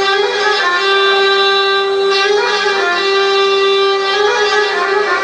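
Belly dance music with a violin melody of long held notes.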